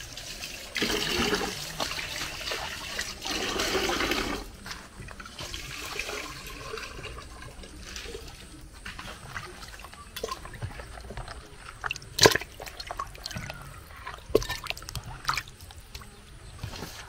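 Water pouring or splashing for a few seconds, then quieter trickling and handling with a few sharp clicks and knocks, one of them the loudest sound.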